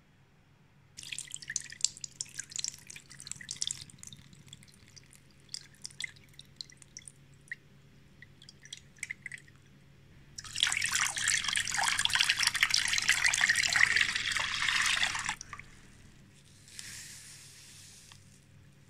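Scattered drips and trickles of liquid, then water poured in a thin stream into an empty stainless steel pot, a steady splashing pour of about five seconds. Near the end comes a softer hiss of agar jelly powder poured into the water.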